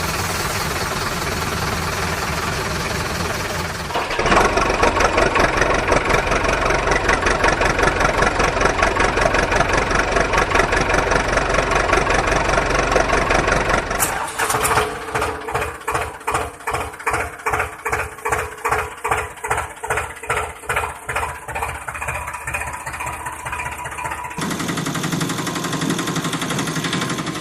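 Engine sounds in several cut-together stretches: a steady run, then a louder run from about four seconds in, then a slow chugging pulse about twice a second through the middle, and a steady run again near the end.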